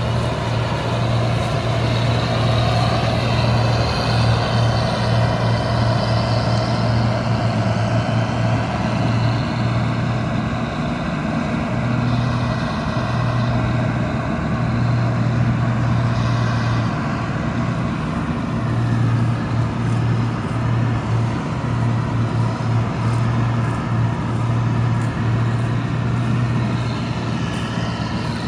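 Combine harvester running steadily, its diesel engine a constant low drone under a broad mechanical noise.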